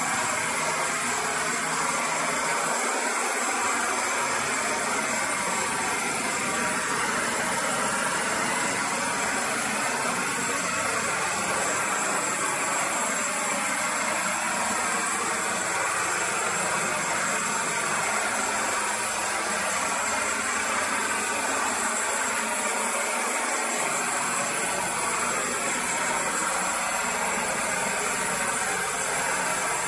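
Propane torch boosted with compressed air, its flame burning with a steady, even rushing noise as it heats steel for bronze brazing.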